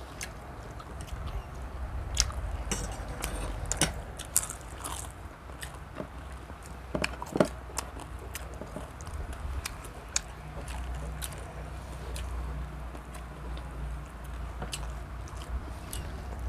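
People eating a meal of rice and grilled meat and fish: chewing and biting, with scattered sharp clicks and knocks throughout, over a steady low hum.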